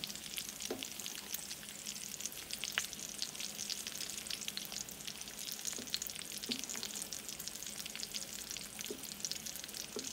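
Scrambled eggs sizzling in a skillet on a wood cook stove, a steady crackle of many fine pops, with a slotted spatula stirring and scraping them a few times.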